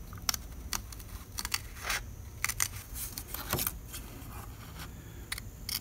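Scissors snipping waterslide decals out of a decal sheet: a series of about ten short, irregularly spaced snips with light paper rustling.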